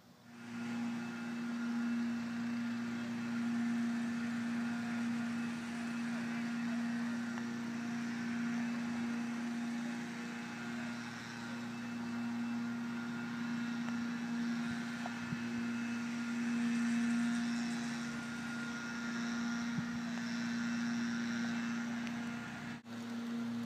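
A steady mechanical hum at one constant pitch, like an engine running at a fixed speed, with a brief dropout near the end.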